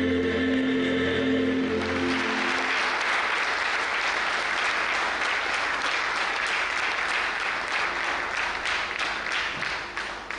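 A song with singer and keyboard ends on a held note about two seconds in, and an audience breaks into applause that goes on steadily, then thins into scattered claps and fades near the end.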